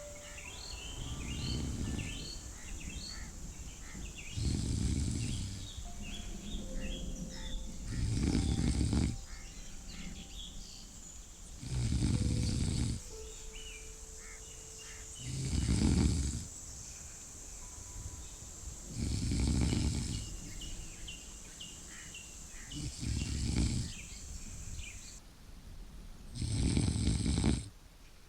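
A person snoring slowly and evenly, one snore about every three and a half seconds, with birds chirping faintly behind.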